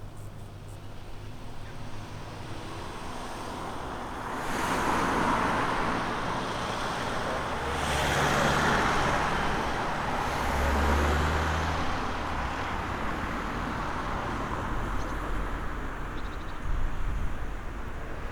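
Light propeller aircraft passing close by, its engine and propeller noise rising sharply about four seconds in, swelling twice through the middle, then easing off.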